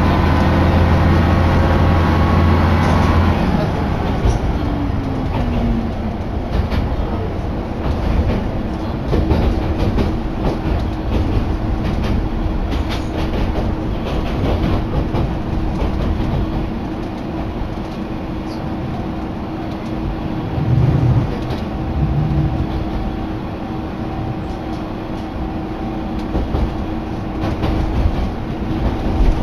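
Inside a diesel railcar on the move: the engine's steady drone for the first three seconds or so drops away in pitch, leaving the car's running noise with repeated clicks of the wheels over rail joints.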